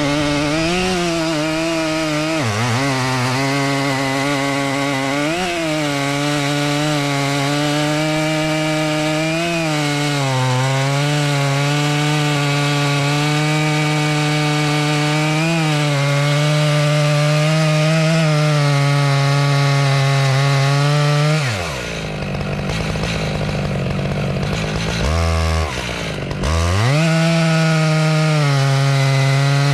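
Stihl MS 881 chainsaw with a 50-inch bar and full-skip chain running at full throttle through a large log, its pitch dipping briefly under load every few seconds. About 21 seconds in it drops sharply to a low idle, then revs back up to full throttle near the end.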